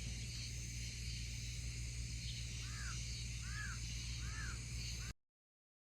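A bird calling outdoors, four short arched calls about a second apart in the second half, over a steady high-pitched outdoor background. The sound cuts off abruptly about five seconds in.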